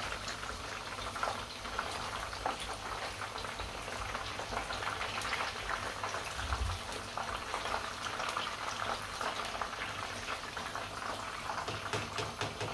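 Hot oil sizzling and crackling around battered chicken pakoras deep-frying in a pan: a steady sizzle with many small crackles.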